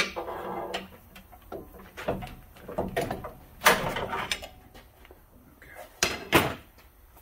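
Steel pry bar levering a lower control arm's bushing end out of its tight mounting bracket: scraping and clunks of metal on metal. Several sharp knocks stand out, the loudest about three and a half seconds and six seconds in.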